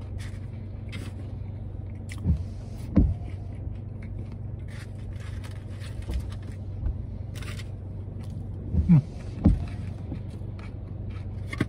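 Mouth sounds of eating a shrimp po'boy sandwich: chewing with small clicks, and four short low throat sounds with falling pitch in two pairs, about two seconds in and near the end. A steady low hum of the car cabin runs underneath.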